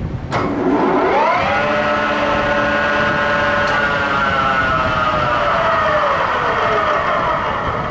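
Goodway GW1660 lathe with a new 10-inch three-jaw chuck, its spindle engaged with a click and spinning up to about 1200 RPM. The headstock gears whine, rising in pitch, run steadily for a few seconds, then wind down in pitch as the spindle slows to a stop.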